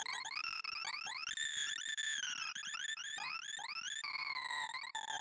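Sorting-algorithm sonification from ArrayVisualizer: synthesized tones whose pitch follows the height of each bar being read and written as a binary merge sort merges runs. They are heard as a fast stream of beeps forming repeated rising pitch sweeps, several a second.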